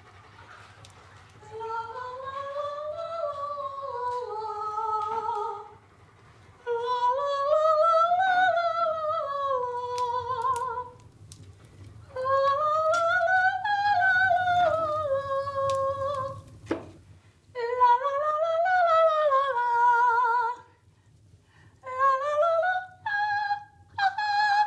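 A woman's high soprano voice singing wordless vocal exercises: four long scale runs that climb and fall back with vibrato, then a few short, separate notes stepping upward near the end.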